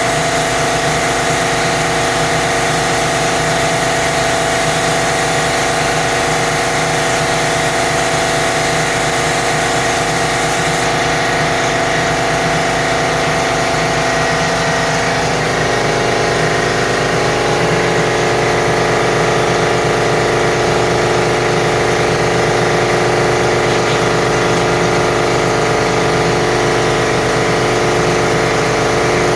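Paint sprayer's motor running steadily with an even hum, its pitch shifting slightly about halfway through.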